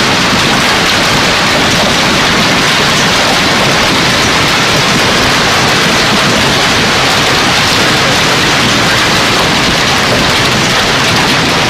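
Hail and heavy rain pelting down in a storm, a loud, steady, dense hiss of countless impacts that does not let up.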